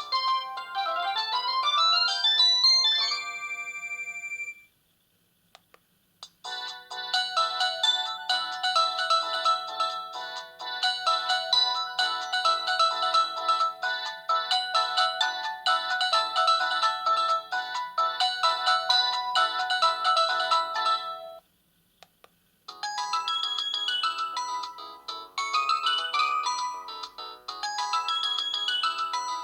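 Ringtones playing one after another from a Samsung GT-E1230 mobile phone, melodies of several notes at once. One ends about four seconds in, the next plays for about fifteen seconds after a short gap, and a third begins after another brief pause.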